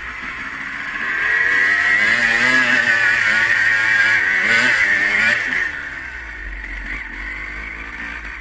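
Dirt bike engine revving up and down under the rider's throttle, louder from about a second in and easing off near six seconds.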